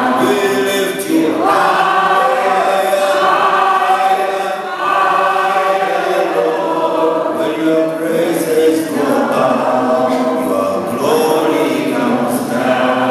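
A church congregation singing a slow worship chorus together, on long held notes.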